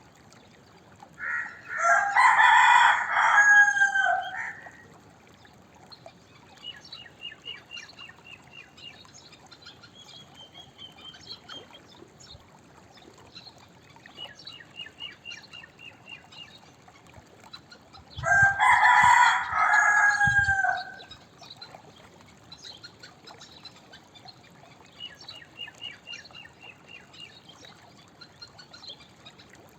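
Domestic rooster crowing twice, each crow about three seconds long and some seventeen seconds apart. Faint high bird chirps come in between.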